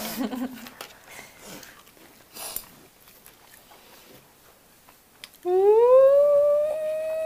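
Quiet eating sounds from a mouthful of fried pork, then about five and a half seconds in a woman's long closed-mouth "mmm" of relish that rises in pitch and is then held.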